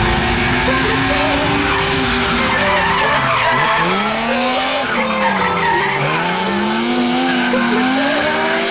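BMW E36 coupe's engine revving hard while drifting, its pitch dropping and climbing back twice, over tyres skidding and squealing. Background music plays underneath.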